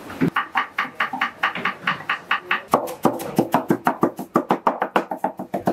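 Rapid chopping of onions with a large knife on a wooden board, about five to seven strokes a second, quickening a little about halfway through.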